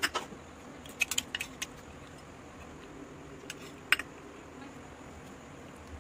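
A few sharp metallic clinks of a steel spoon against a steel bowl as chopped dry fruits are tipped into milk heating in a pan: one at the start, a quick run of taps about a second in, and a single louder clink about four seconds in, over a faint steady hiss.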